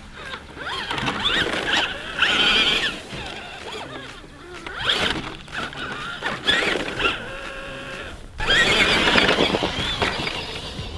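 Electric motor of a radio-controlled monster truck whining, its pitch rising and falling in bursts with the throttle, louder and busier from about eight seconds in.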